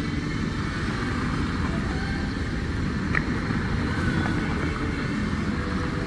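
Steady city street traffic noise: cars running along the road, with a constant low rumble.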